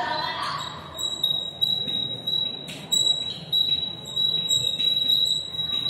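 Chalk writing on a blackboard: short scratching strokes and taps, with a thin high squeak that starts about half a second in and breaks off and resumes with the strokes.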